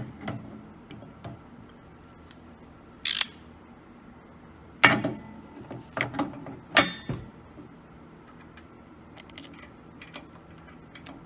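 Grind-selector dial of a Grindmaster 890 coffee grinder being turned and handled by hand, giving scattered clicks and knocks. The loudest knock comes about five seconds in, with a short scrape about three seconds in and light ticks near the end.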